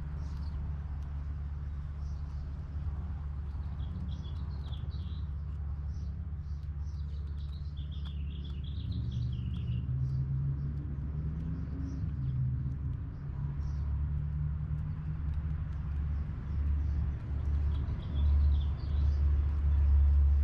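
Birds chirping in short clusters, twice, over a constant low rumble that turns uneven and louder in the second half.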